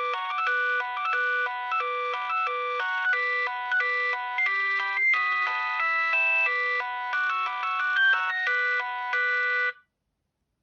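Alcatel OT 715 mobile phone playing one of its original built-in ringtones: a synthesized melody of quick, repeating notes, often several sounding at once. It cuts off near the end.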